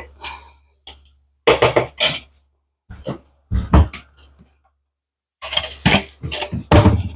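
A non-metal spatula stirring and scraping scrambled eggs around a nonstick egg pan, with bursts of clattering strokes and a dull knock against the pan now and then.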